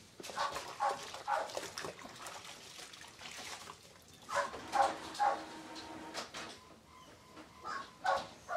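A Labrador barking at the door in three short runs of two or three barks each, calling for attention.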